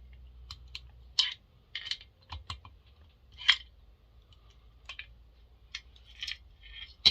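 Irregular light metallic clicks and clinks of small screws and tools being handled while the housing of a McCulloch 7-10 chainsaw is taken apart, with one louder clink about three and a half seconds in.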